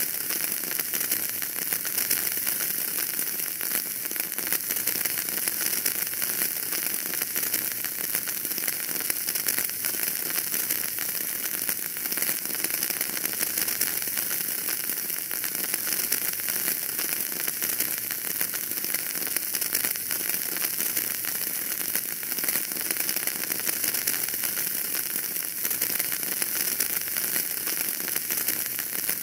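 Wood fire burning in a fireplace, crackling steadily: an even hiss with dense small pops throughout.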